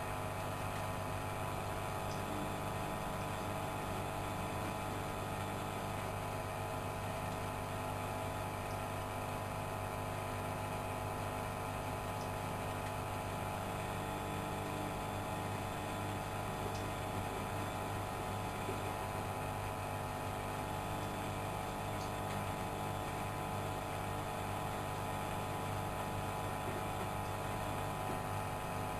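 Studio WM26AAA washing machine running with a steady motor hum of several fixed tones, unchanging in pitch, starting abruptly and stopping abruptly near the end.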